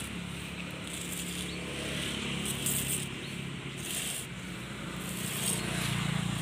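A steady low motor hum, as of an engine running nearby, under faint outdoor background noise.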